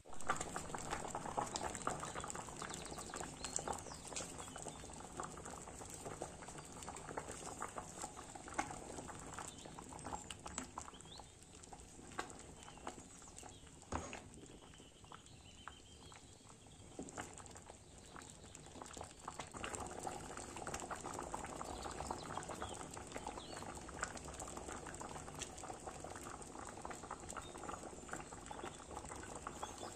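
Plums boiling hard in water in a stainless steel pot: a steady crackle of bubbling and popping, with a single knock about halfway through.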